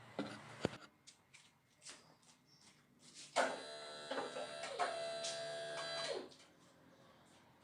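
Light clicks of metal handling, then a small power tool's motor whirring for about three seconds, its pitch dipping briefly a couple of times before it stops.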